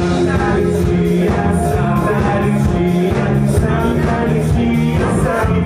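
Live rock-pop band playing a song with a steady beat: a male lead voice singing over electric guitar, keyboard and drums.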